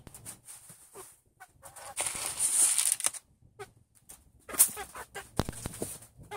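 Chickens clucking softly in short scattered notes, with a loud rustling rush about two seconds in and a few sharp scuffs and rustles later on.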